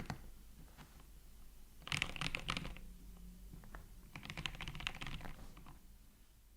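Custom Tofu65 65% keyboard with yellow milky linear switches on an aluminium plate, typed on in two quick bursts of keystrokes about two seconds apart, with a few single key presses between. The typing thins out and fades toward the end.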